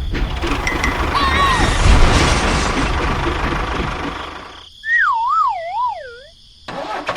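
A dense, noisy rumble, then a wavering whistle-like tone that slides downward in pitch over about a second and a half, and the noise returns near the end.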